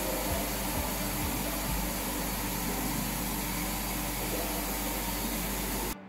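Steady rushing hiss of water spraying from a shower, cutting off suddenly near the end.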